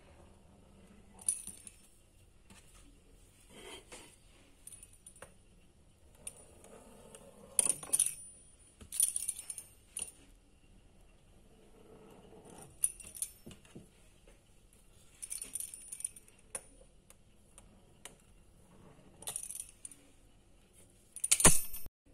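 Metal pastry wheel cutter rolling through a sheet of chilled dough on a board, giving irregular light metallic clinks and rattles every second or two, the loudest just before the end.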